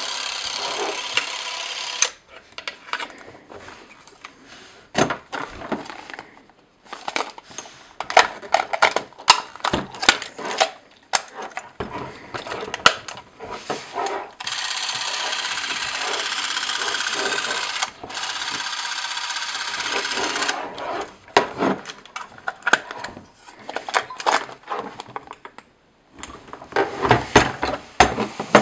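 Canon Auto Zoom Super 8 movie camera's electric motor whirring steadily, stopping about two seconds in and running again for about six seconds in the middle. Between the runs come clicks of its buttons and the camera being handled, and near the end a clatter as the film door is opened and the Kodak Super 8 cartridge is taken out.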